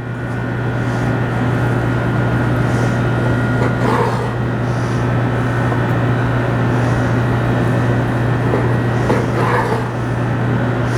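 Loud, steady machine hum with a low drone, swelling in at the start and running evenly, with faint brief sounds about four and nine and a half seconds in.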